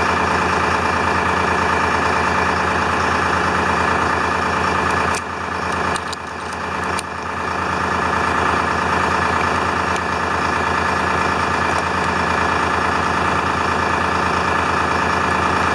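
A 1976 International fire truck's diesel engine idling steadily. About five to seven seconds in, a few sharp clicks sound and the level dips briefly.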